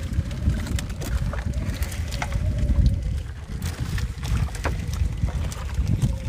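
Fishing net being hauled by hand into a wooden outrigger boat: scattered short clicks and knocks of the net and its floats against the hull. Under them is a steady low rumble of wind on the microphone.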